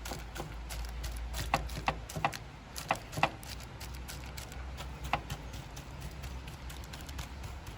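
Irregular light taps and knocks, roughly one every half second to a second, as a sticky chocolate and puffed-rice mixture is pressed down flat in a paper-lined glass tray, over a steady low hum.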